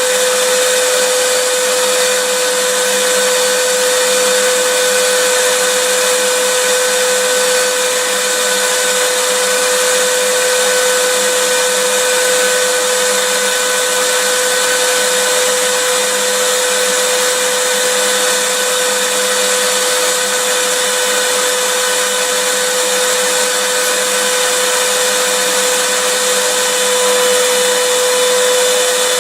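Vacuum cleaner running steadily: a constant rush of air with a steady hum-like whine from the motor, holding the same speed and loudness throughout.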